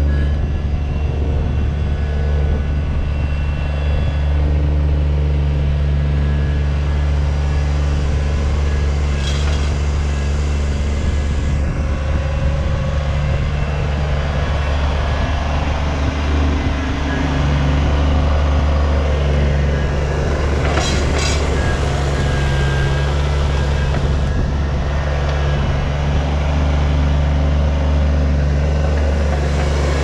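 Kubota BX25 subcompact tractor's three-cylinder diesel engine running steadily while the tractor moves, its pitch shifting slightly a couple of times. A few brief clinks come through, about nine and twenty-one seconds in.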